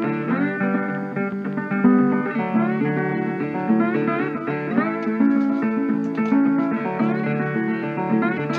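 Background music: a guitar playing a run of plucked notes.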